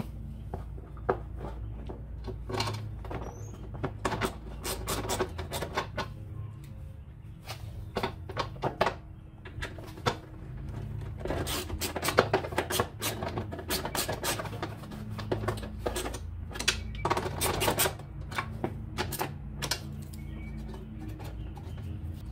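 Hand tool clicking and tapping against the mower's steel deck and the drive-belt cover while the cover's fasteners are refitted, in quick runs of clicks about halfway through and again later, over soft background music.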